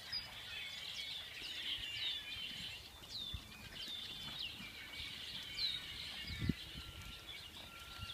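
Small birds chirping steadily, many short high calls that sweep downward, with a few faint dull thuds of the horse's hooves on the sand.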